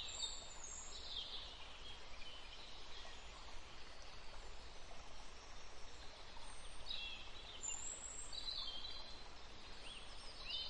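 Faint outdoor ambience with high-pitched chirps and calls of unseen birds, coming in short clusters every second or two over a steady low background noise.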